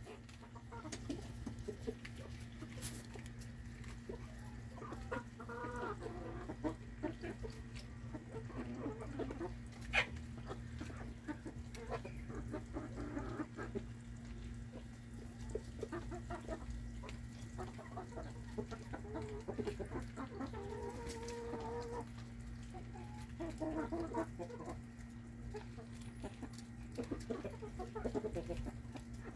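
A flock of backyard chickens clucking softly on and off, with one longer drawn-out call about two-thirds of the way through.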